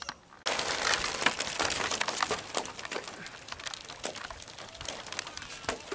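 Dense, irregular crackling and rustling that starts abruptly about half a second in, after near quiet.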